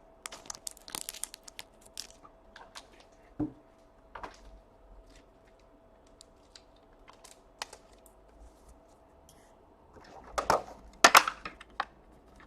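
Trading cards being handled and flipped through by hand: scattered clicks and short rustles of card stock, with a louder flurry of rustling and clicking near the end, over a faint steady hum.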